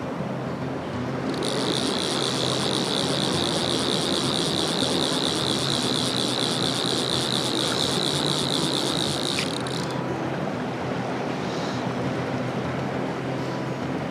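Fly reel's click drag ratcheting rapidly as the reel handle is wound. It starts about a second and a half in and stops after about eight seconds, over the steady rush of a shallow stream.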